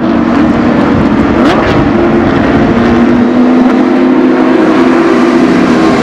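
Porsche 911 race cars running at speed around the track, their flat-six engines making a loud, steady sound that holds its pitch with only small drifts.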